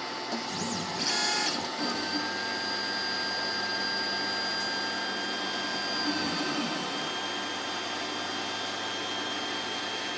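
MakerGear M2 3D printer running: its fans hum steadily while the stepper motors whine through moves, a short burst about a second in and a long steady tone from about two to seven seconds in, as the hot end starts laying down the first layer.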